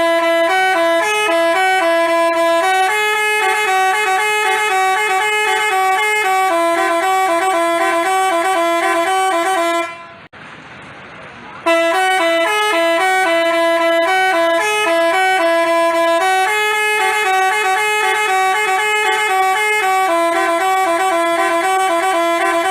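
Basuri telolet bus horn playing its multi-note tune, with held notes stepping up and down. The tune runs about ten seconds, breaks off briefly, then starts over.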